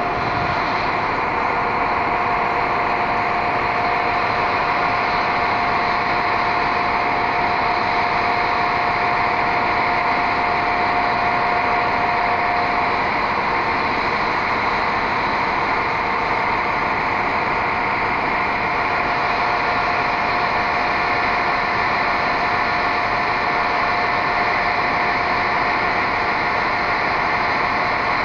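Serbian Railways series 711 Russian-built diesel multiple unit idling, a steady engine drone with a high whine on top that drops out about halfway through.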